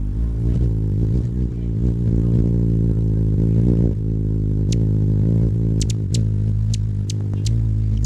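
A loud, steady low motor hum with a rich buzzy tone. About halfway through, a handful of sharp, very short high ticks sound over it.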